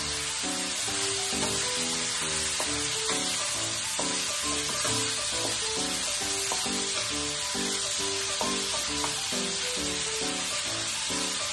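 Pork cubes sizzling as they fry in oil in a wok, turned with a wooden spatula, over background music with low rhythmic notes.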